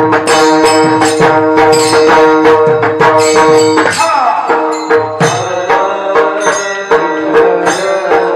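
Kirtan accompaniment: a mridang playing a steady beat, with jingling small hand cymbals and steady held reed notes underneath. The rhythm breaks briefly about four seconds in, then picks up again.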